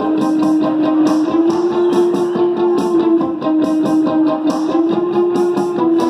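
Rock band playing live: electric guitar played over drums, with one note held steadily throughout.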